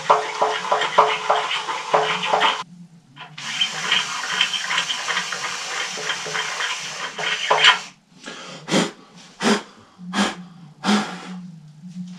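Power drill boring through the outer skin and insulation of an electric water heater, with a rapid regular chatter. It stops briefly about two and a half seconds in, runs again until about eight seconds in, then a few short knocks and clicks follow.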